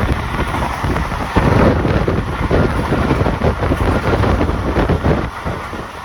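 Rumble of a moving passenger train with wind buffeting the microphone, growing louder and gustier about a second and a half in.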